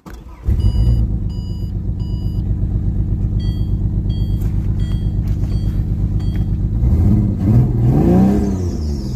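Ford Falcon XR6 Turbo's turbocharged inline-six catching about half a second in and idling with an even pulsing beat, while the dashboard warning chime beeps repeatedly. Near the end the engine is revved up and settles back down once. The engine has just been brought back after more than a year standing, and the owner says it is misfiring.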